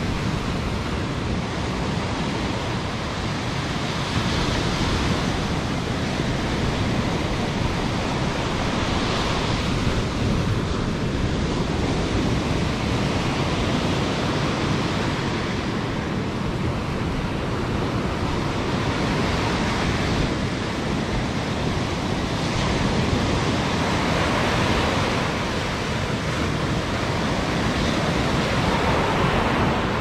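Caribbean surf breaking and washing up a sandy beach, a steady rush that swells every few seconds, with wind rumbling on the microphone.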